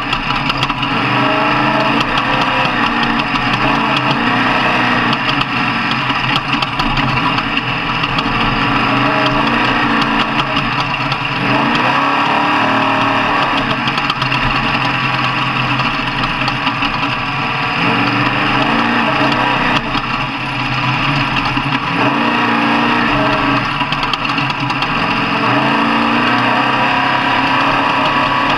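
Off-road truck engine running loudly, its pitch rising and falling as it revs up and eases off repeatedly.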